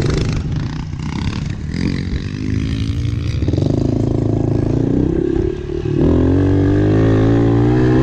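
Dirt bike engine heard from on board, revving up as the bike accelerates along a dirt track. The pitch climbs from about two seconds in, drops briefly about five and a half seconds in, then holds at high revs, loudest near the end.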